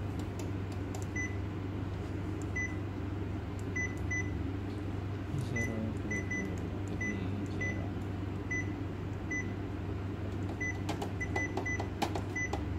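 Short high key-press beeps from a 5002i photocopier's touchscreen as a login is typed on its on-screen keyboard, about fifteen at an irregular pace, over a steady low hum. A few faint taps come near the end.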